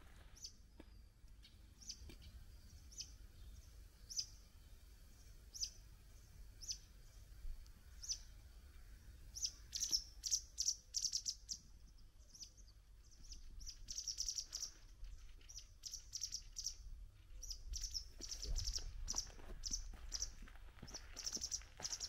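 Small songbirds chirping: a single high chirp repeated about once a second, then quicker runs of chirps from about ten seconds in.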